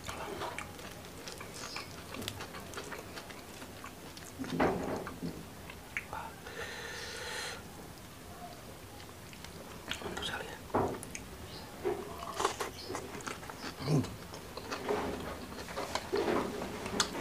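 Close-up chewing and biting of fried fish with chili sambal, with wet mouth sounds and scattered small clicks, and one longer pitched mouth sound about six seconds in.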